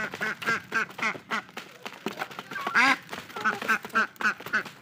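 Chickens clucking as they feed, a quick run of short calls a few times a second with one louder, longer call about three seconds in. Light taps of beaks pecking on the cardboard feed box run under the calls.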